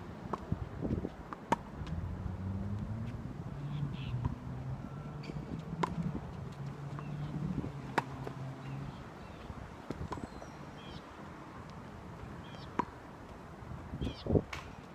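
Tennis rally: sharp cracks of a tennis ball off strings and the court every second or two. A low hum runs from about two to nine seconds in, and birds chirp faintly.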